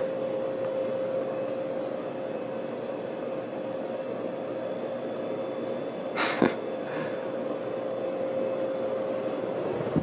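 1984 Casablanca Four Seasons ceiling fan running at speed 5 of 6 on its first-generation Inteli-touch control, with a steady motor hum and the rush of air off the cane blades. A single sharp click comes a little past halfway, then a softer one.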